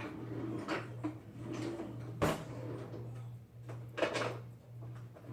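A few scattered kitchen knocks and clatters, the loudest a little over two seconds in and another around four seconds, as a kitchen drawer is worked to fetch a spoon, over a faint low hum.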